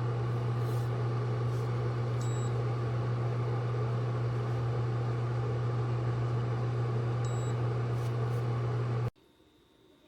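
Steady low mechanical hum that cuts off abruptly about nine seconds in.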